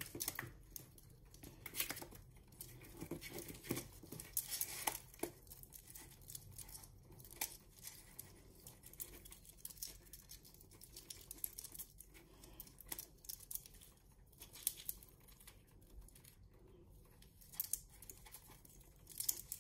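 Red squirrel gnawing a large cedar-pine cone and tearing off its scales: quiet, irregular dry crunches and clicks.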